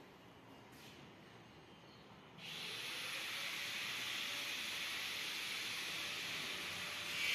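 A steady high hiss that starts suddenly about two and a half seconds in, after a quiet start.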